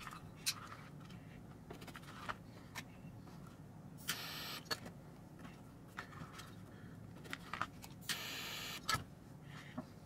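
Two short hisses of a butane lighter flame, about four and about eight seconds in, as the cut paracord ends are singed, with small clicks and rustles of the cord and knife being handled in between.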